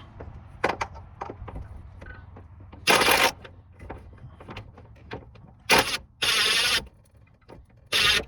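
Impact gun with a 10 mm socket snugging fender bracket bolts in short bursts: one about three seconds in, a pair near six seconds (the second the longest, about half a second), and one near the end, with light clicks of tool handling between.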